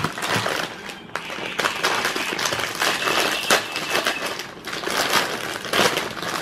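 Plastic instant noodle packets crinkling and rustling as they are handled, a dense, continuous crackle.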